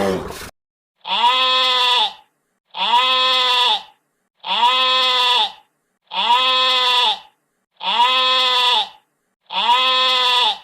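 Goat bleating: the same one-second call repeated six times, evenly about every 1.7 s, as a looped sound effect. At the very start, a different short call is cut off.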